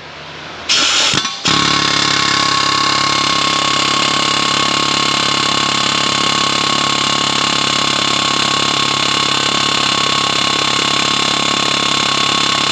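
Pneumatic air hammer with a punch bit hammering on a tight press-fit ball joint in a steering knuckle, trying to drive it out. It gives a short burst about a second in, then runs without a break.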